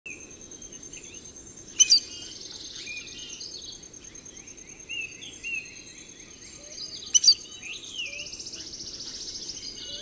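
Birds chirping and trilling over a steady, high insect drone. Two sharp double clicks stand out, about two seconds in and again about seven seconds in.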